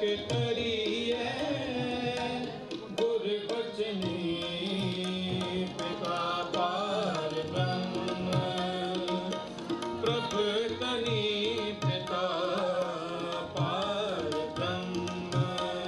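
Sikh shabad kirtan: a ragi sings a hymn over sustained harmonium chords, with tabla playing a steady rhythm.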